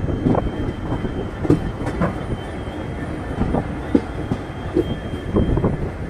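Passenger train's wheels clattering over rail joints and points with irregular knocks, over a steady running rumble, as the train comes into a station. A faint, thin, high squeal runs through most of it and fades near the end.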